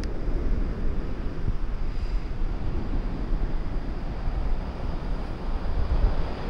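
Wind buffeting the microphone: a gusting low rumble over a steady outdoor rush of air.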